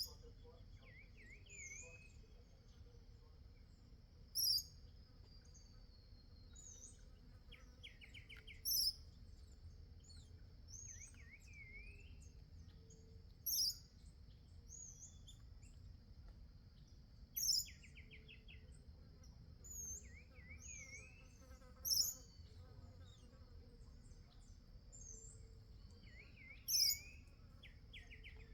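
Several birds calling at a garden feeder: a sharp, high call repeats about every four to five seconds, with quick trills and short rising chirps in between. A steady, high insect drone runs underneath.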